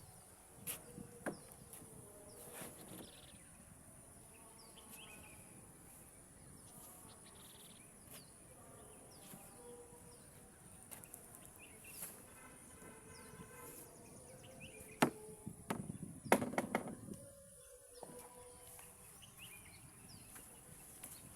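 Riverside ambience: a steady high-pitched insect drone with many short bird chirps, and a few sharp knocks about three-quarters of the way through.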